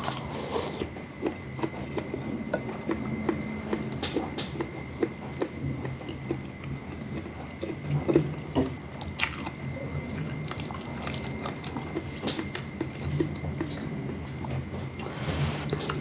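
Close-miked wet chewing and biting of spicy rice noodle soup with meatballs, with irregular small clicks and smacks.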